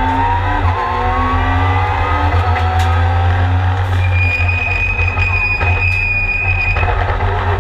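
Mitsubishi Lancer Evolution time-attack car's turbocharged engine heard from inside the cabin, pulling hard with revs climbing under full throttle. About four seconds in, a high steady whine joins it for about three seconds.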